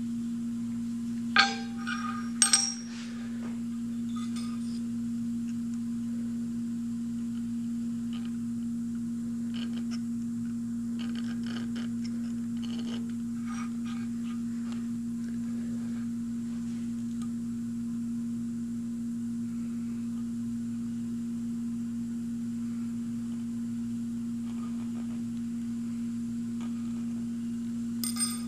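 A steady low electrical hum throughout. Two sharp knocks about a second and a half and two and a half seconds in as the steel block and angle plate are set down on the granite surface plate, then faint scratching of a hand scribe marking layout lines on the blued steel.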